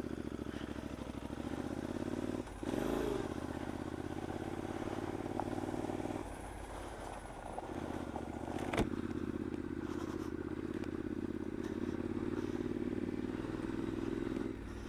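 Triumph Scrambler's 865 cc air-cooled parallel-twin engine running steadily at low speed on a dirt track, with a short rev about two and a half seconds in and an easing off of the throttle after about six seconds. A single sharp knock comes near nine seconds.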